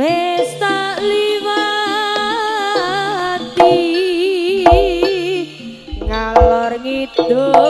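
Live Javanese barongan accompaniment music: a sustained, wavering melody line over heavy low drum beats that come in about halfway through.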